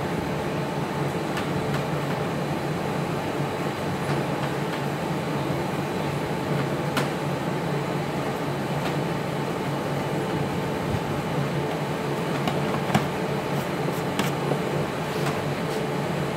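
Gas stove burner running steadily under a pot of bamboo shoots being brought to the boil, with a low hum and a few faint ticks.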